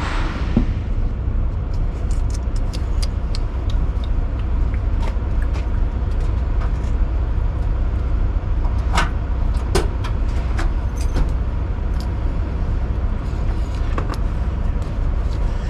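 Diesel semi-truck engine idling, a steady low rumble, with scattered light clicks and taps over it, the sharpest about nine and ten seconds in.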